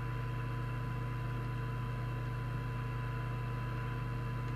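Weak FM test signal received on a Cobra UK29LTD ST CB radio during receiver alignment: a steady 1 kHz test tone heard through background hiss, over a louder steady low hum.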